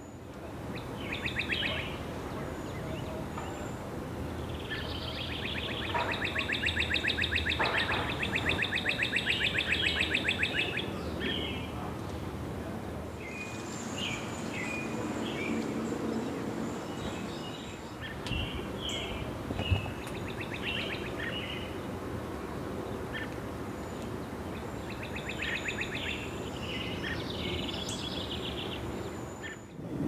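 Backyard songbirds singing and calling: a rapid buzzy trill comes several times, the longest lasting about five seconds, among scattered short chirps, over steady low background noise.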